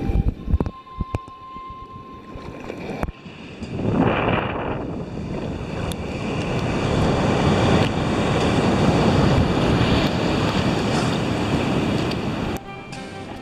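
Ocean surf rushing and breaking, with wind buffeting the microphone, swelling twice. A few sharp knocks come in the first few seconds, and the rush cuts off suddenly near the end.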